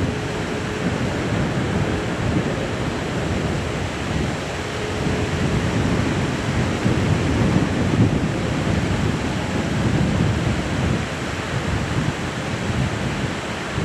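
Low, steady rumble of a taxiing British Airways Airbus A380's Rolls-Royce Trent 900 engines, which swells and ebbs, mixed with wind on the microphone.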